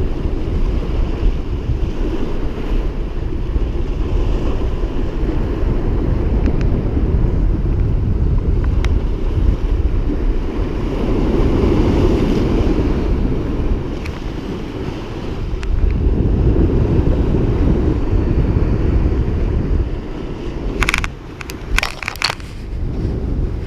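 Wind buffeting the microphone over waves breaking and washing against jetty rocks, a steady rushing that dips briefly now and then. A few sharp clicks come close together near the end.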